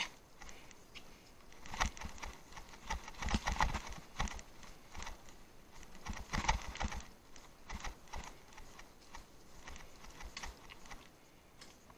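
Bicycle clattering over rough off-road ground: irregular knocks and rattles, thickest in clusters about two seconds in and again from about three to seven seconds, thinning out near the end.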